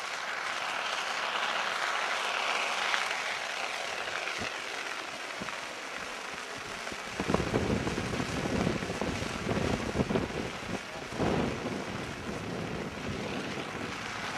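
Stacked Dynakite trains rushing through the air as they swoop and turn, a broad whoosh strongest in the first few seconds. Irregular gusts of wind buffet the microphone from about halfway through.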